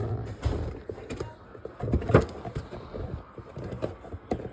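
Plastic toy and cardboard box being handled: irregular clicks and knocks, the loudest about two seconds in.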